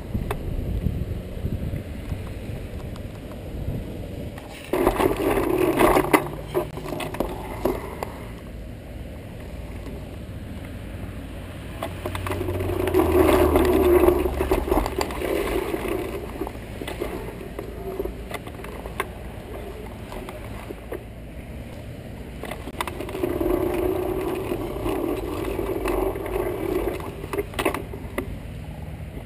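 Electric bike riding over a rough dirt bush track: tyres crunching and rattling over gravel and debris with a low rumble, growing louder in three stretches.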